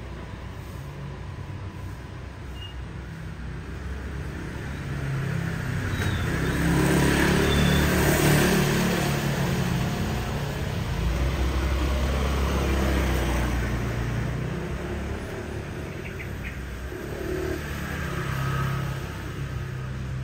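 Motor scooters passing close by on a narrow street. Their engines swell in over several seconds, are loudest through the middle, and fade; another passes near the end.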